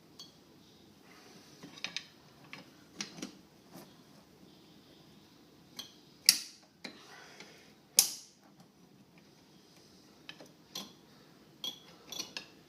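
Scattered metallic clicks and clinks of a pry tool and an old brake pad against the brake caliper as the caliper piston is pried back, with two sharper clanks about six and eight seconds in.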